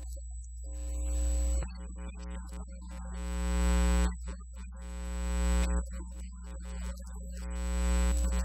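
Synthesizer music: sustained electronic chords that swell up over about two seconds and drop off, about four times, over a steady low hum.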